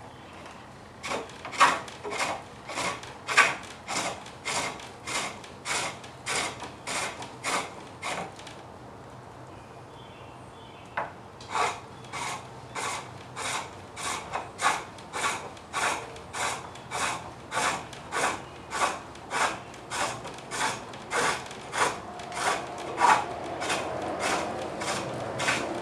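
Turning chisel cutting a wooden blank on a cord-driven reciprocating lathe, the blank spinning back and forth. It gives a rhythmic series of scraping strokes, a little under two a second. The strokes pause for a few seconds about a third of the way in, then resume.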